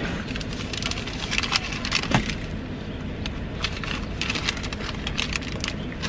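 Irregular rustling, crinkling and clicking as things are handled inside a car, over the steady low rumble of the running car.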